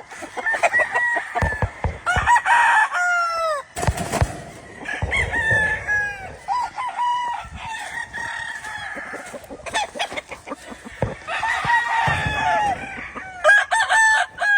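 Several gamefowl roosters crowing one over another, the calls overlapping almost without a break, with a few sharp knocks about two and four seconds in.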